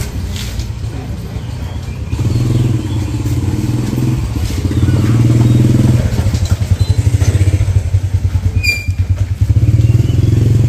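Motorbike engine running close by, a steady low hum that throbs rapidly for a few seconds in the middle.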